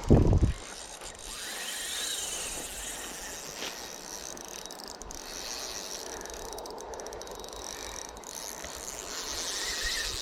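Spinning reel being cranked, a steady mechanical whirring and clicking as a Flying C spinner is retrieved through the river, after a dull low thump at the very start.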